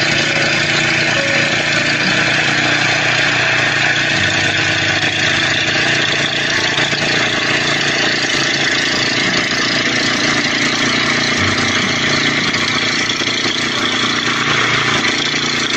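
Portable band sawmill's small gasoline engine running steadily.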